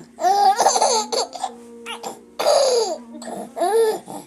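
A five-month-old baby laughing hard in about three bursts, set off by his mother's hiccups.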